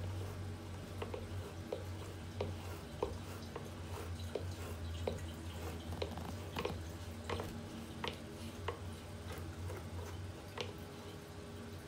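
Bathroom exhaust fan running with a steady low hum, with scattered light clicks and taps through it.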